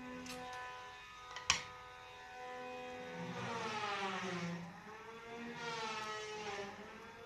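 A motor engine runs in the background, its pitch falling and rising twice, over a steady electrical hum. There is a single sharp click about a second and a half in.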